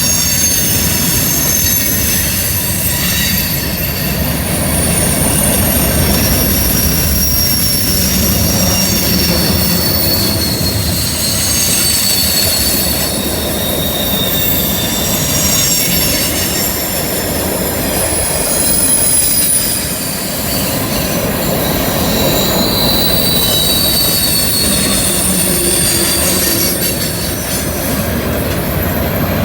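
Freight train rolling through a curve, its wheels squealing with several high, wavering tones over a steady rumble. This is flange squeal from the wheels working against the rail on the curve.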